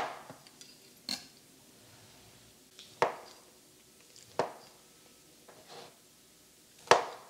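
Chef's knife cutting through pound cake and striking the cutting board: a handful of sharp knocks, each a second or more apart, unevenly spaced.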